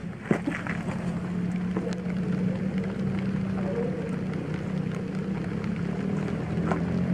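Small trail motorbike engine idling steadily, its pitch holding even, with one short knock near the start.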